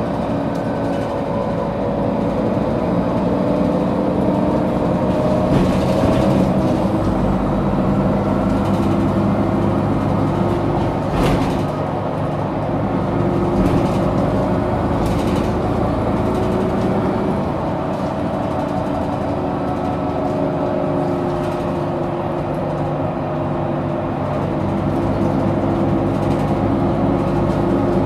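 Inside a 2008 Mercedes-Benz Citaro O530G facelift articulated bus on the move: the engine runs steadily, its pitch drifting up and down as the bus pulls and eases off, over road noise, with a few sharp knocks or rattles from the body.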